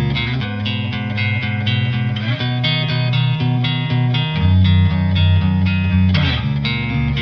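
Background music: plucked guitar playing a steady pattern of notes over a bass line.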